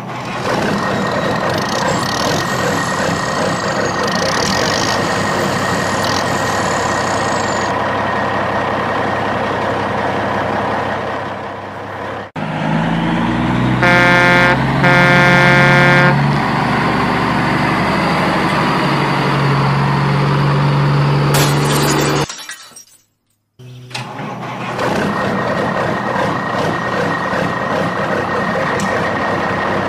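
Heavy truck engine sound effect running steadily, with two long horn blasts near the middle. The sound briefly cuts out about two-thirds of the way through, then resumes.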